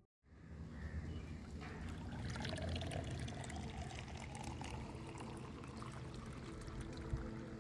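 Water poured from a jug into a drinking glass, a steady pouring splash that starts just after a moment of silence, with one brief click near the end.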